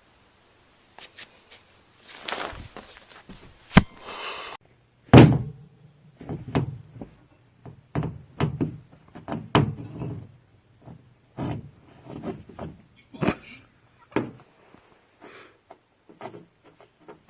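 An irregular series of knocks and thumps, the loudest about five seconds in.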